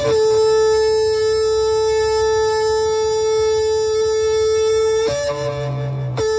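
Shofar sounded in one long, steady blast of about five seconds, a call to repentance; guitar music follows near the end.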